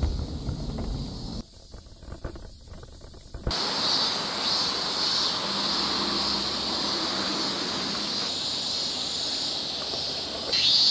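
Wind buffeting the microphone on a moving scooter, which cuts off after about a second and a half. From about three and a half seconds in, a steady, high-pitched, pulsing drone of summer cicadas.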